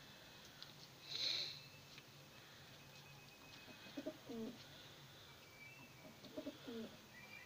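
Domestic pigeons cooing: two low, wavering coo phrases, about four seconds in and again near the end. A short rustling burst about a second in is the loudest sound.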